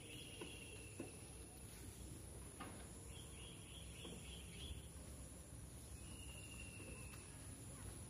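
Faint outdoor ambience with three short, high, rapidly pulsed trilling calls, each about one to one and a half seconds long, over a thin steady high tone and a couple of faint ticks.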